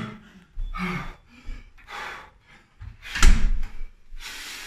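A wooden front door shutting, the loudest sound about three seconds in, amid a man's heavy panting breaths.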